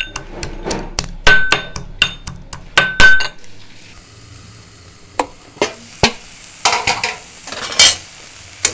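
A metal pestle pounding garlic cloves and a green chilli in a metal mortar, several sharp ringing strikes. About three and a half seconds in it gives way to food sizzling in a metal frying pan, with a spatula scraping and knocking against the pan.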